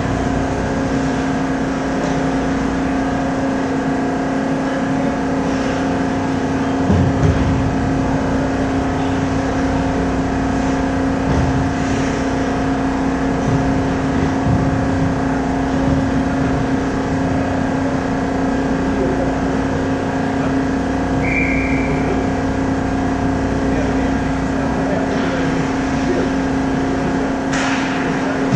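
Steady machinery hum of an indoor ice arena, made of several constant tones over a noisy haze, with faint scattered knocks from play on the ice. A low thump comes about seven seconds in, and a short high tone sounds a little past two-thirds of the way through.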